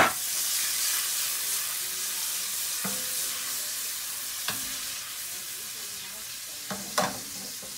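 Shrimp, garlic and onion sizzling in oil in a frying pan over a gas flame while the pan is shaken. The sizzle is loudest at first and slowly eases off. A sharp knock at the start and a few lighter knocks of the pan come through it.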